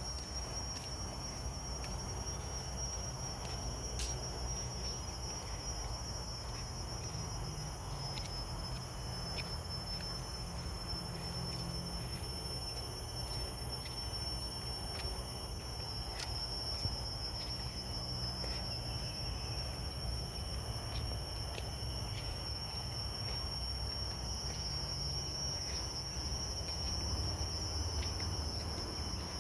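Insects trilling steadily at two high pitches, over a low steady rumble.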